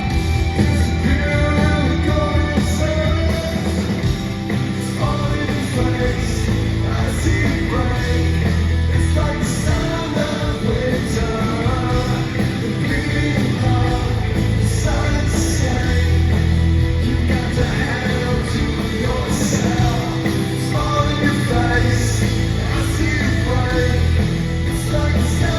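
Rock band playing live in concert, with a singer's voice over the full band.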